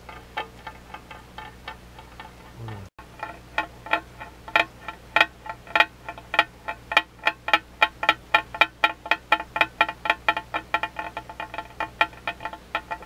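Round-bottomed swing glass rocking on a glass tank lid, clinking with a short ringing note at each tip, a few times a second. The clinks grow louder after about three seconds and come faster toward the end.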